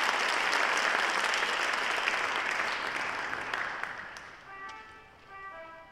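Audience applause, fading away over about four seconds, then a pipe organ begins playing quiet held notes that change in steps.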